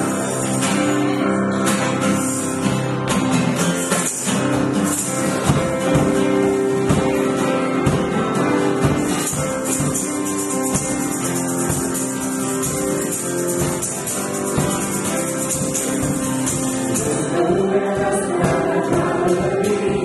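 Live church worship music: voices singing over instrumental accompaniment, held steady at a full level, with a bright high shimmer through the middle.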